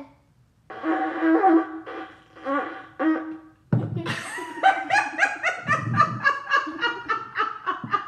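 A long twisted horn shofar blown in three short, unsteady attempts by a blower who says she can't blow it, then both people laughing hard through the second half.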